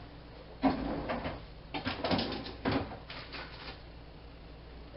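A few short rustles and soft knocks from food and kitchen items being handled, spread over the first four seconds.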